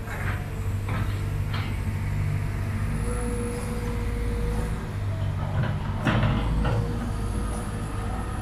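Traffic noise: a heavy vehicle's engine running steadily, with a few short hisses, the loudest about six seconds in.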